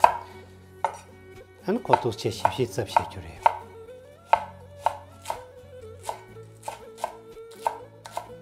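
Chinese cleaver chopping green onions on a bamboo cutting board, the blade knocking on the wood. There is a loud first chop, a quick run of chops about two seconds in, then evenly spaced chops two or three a second.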